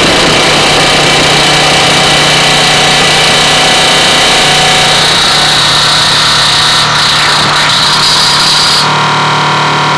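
Harsh noise music played through a Neptune 610 audio mixer: a loud, dense, distorted drone with a steady low hum and several high whining tones held over it. A little before the end, the hiss in the top end falls away and a middle whine comes forward.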